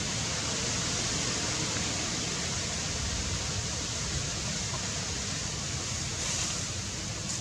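Steady, even hiss of outdoor background noise with a low rumble underneath; no distinct calls, knocks or other events stand out.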